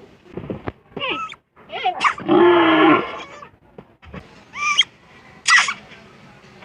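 A cat meowing several times in short calls that slide in pitch, the longest and loudest about two seconds in.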